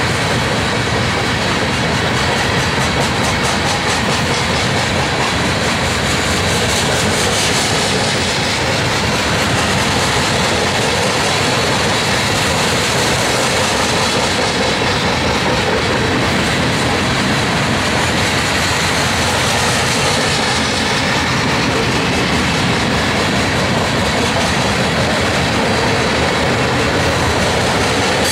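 Coal gondolas of a freight train rolling past, a steady rumble and rattle of steel wheels on rail.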